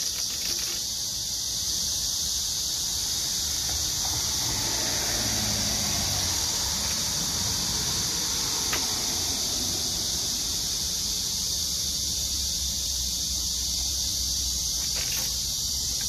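Chorus of black cicadas (Cryptotympana atrata) in a continuous, steady high buzz, over a low rumble of road traffic.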